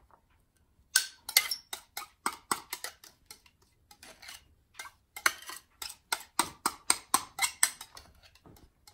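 A spatula scraping and knocking against a glass mixing bowl as thick icing is worked out of it. The sharp, irregular clicks and knocks come a few a second, starting about a second in.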